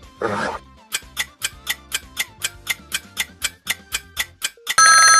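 A last short, gruff burst of a walrus call, then a quiz countdown timer ticking about four times a second for some three seconds, ending in a loud bell-like ding near the end.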